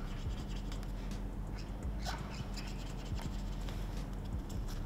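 Felt-tip marker dabbing and scratching on paper as small dots are drawn, a scatter of short soft ticks over a steady low hum.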